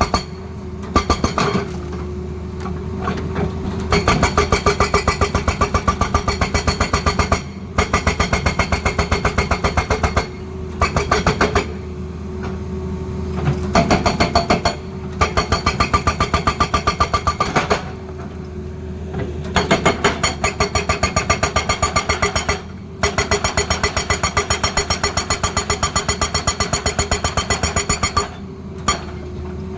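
Hydraulic breaker on a Tata Hitachi excavator hammering in rapid, evenly spaced blows, in bouts of a few seconds broken by short pauses, over the steady running of the excavator's engine.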